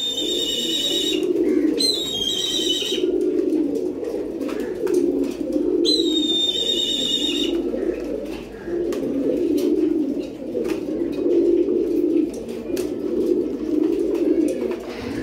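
Several caged domestic pigeons cooing on and on, a low pulsing burble with no break. A high, slightly falling whistle-like call cuts in three times in the first half, and faint clicks are scattered throughout.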